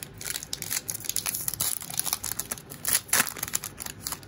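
Plastic wrapper of a 2021 Donruss baseball card pack crinkling as it is torn open by hand, a rapid run of crackles that is loudest about three seconds in.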